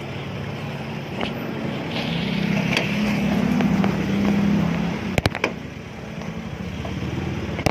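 Steady low hum of a vehicle engine running, with two sharp clicks about five seconds in and another at the end.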